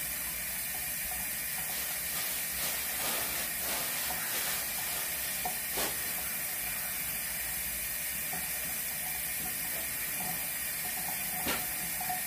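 Steady background hiss with a few light clicks and knocks scattered through it.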